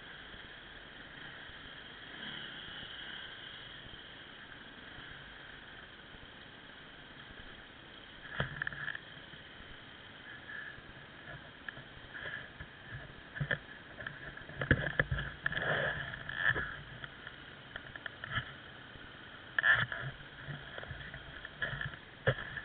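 Off-road motorcycle engine running steadily, then a run of irregular louder bursts and knocks from about eight seconds in.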